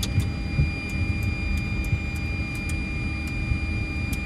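Fokker 100 cockpit noise on the ground after landing: a low, uneven rumble with steady high whines from the engines and cockpit equipment. Sharp, short clicks are scattered through it as switches on the overhead panel are set.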